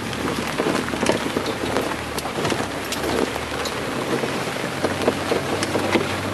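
Inside a jeep driving over a rough track: the engine hums low and steady under a constant patter of small rattles and knocks, and the engine note changes about four to five seconds in.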